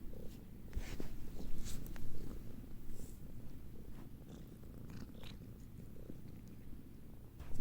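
Domestic cat purring steadily, a low continuous rumble, with a few soft clicks and rustles over it.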